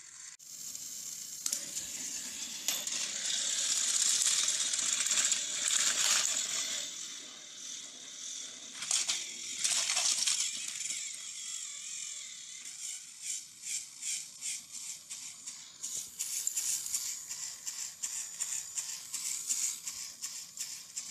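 Battery-powered plastic toy trains running on plastic track, their small motors whirring and gears rattling as one engine pushes another. In the last several seconds the sound breaks into rapid plastic clicking and clattering.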